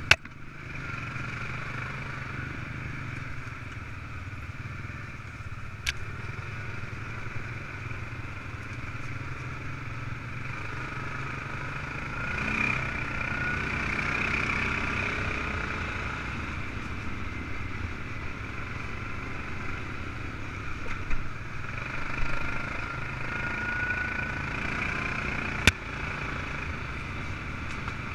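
ATV engine running steadily under way, with a higher whine that swells and eases as the throttle changes. Two sharp knocks cut through, about six seconds in and near the end.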